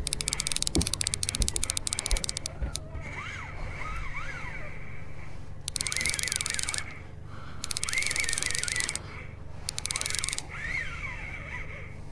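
Fishing reel's drag clicking rapidly as a hooked striped bass runs and takes line. This is followed by three short spells of the reel being cranked, with a gear whine.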